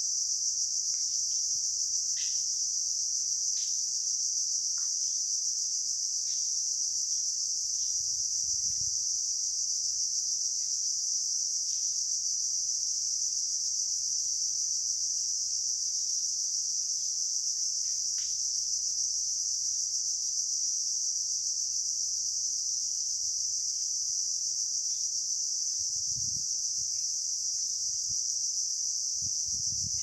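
Dense, steady, high-pitched insect chorus, unbroken throughout. Faint short chirps sound now and then above it, and a few soft low thumps come in, mostly near the end.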